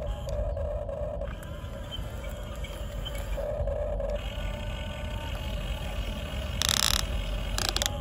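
Huina RC excavator's small electric motors whirring in two short spells as the boom and bucket move, over a steady low rumble. Two brief noisy bursts come near the end.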